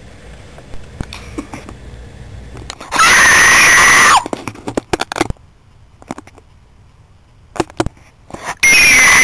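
A person screaming loudly twice, each scream about a second long and so loud it distorts: the first about three seconds in, the second near the end. Scattered short clicks and knocks fall in between.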